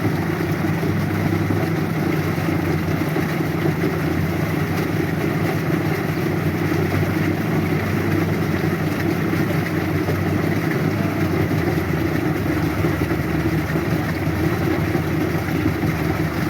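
Farm tractor engine running steadily, with a slight change in its low note about twelve seconds in.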